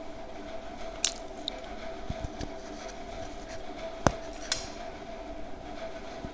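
Homemade slate-pencil lollipop being bitten and crunched between the teeth: a few sharp cracks, the loudest about four seconds in, over a steady background hum.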